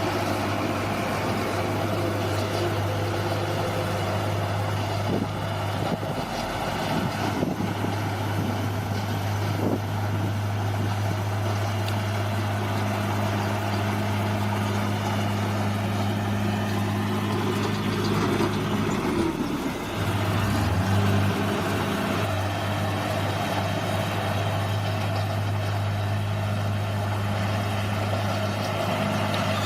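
Bulldozer's diesel engine running steadily, its tone dipping briefly about six seconds in and again near twenty seconds in as the load changes, with a few sharp knocks between about five and ten seconds in.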